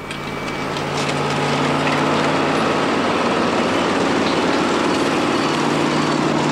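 Heavy diesel engine of a landfill bulldozer running steadily as it works the refuse. The sound fades in over about the first second, then holds at a constant pitch.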